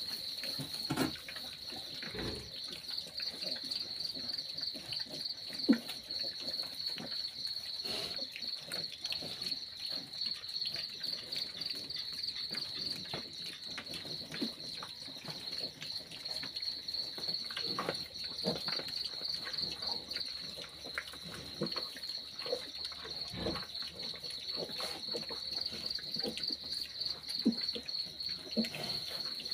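A cricket's continuous high, fast-pulsing trill, with scattered small scuffs and knocks from piglets rooting in straw on a dirt floor.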